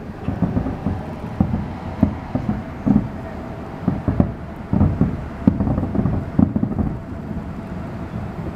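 Distant fireworks shells bursting in quick, irregular succession: a string of low booms, several a second, each with a short echo after it.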